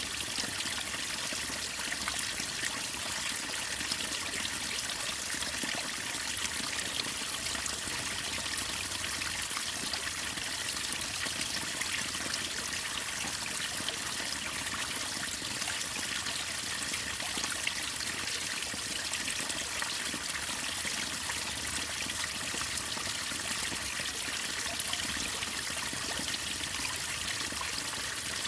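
Waterfall and river water splashing and rushing in a steady, even hiss that holds without change.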